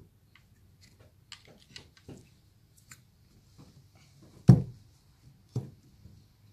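Light clicks and taps of a plastic glue bottle being squeezed and handled, then a sharp knock about four and a half seconds in and a lighter one a second later as a plastic bottle is set down on the table.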